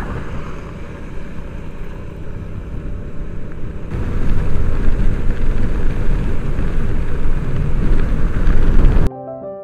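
Motorcycle engine running under heavy wind and road rush while riding, louder from about four seconds in. Near the end it cuts off suddenly to soft piano music.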